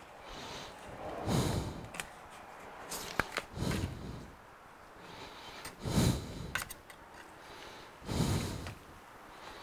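Workbench handling sounds: a few light clicks and taps of a pry tool and a tablet on a metal plate, among soft breathy swells that come about every two seconds.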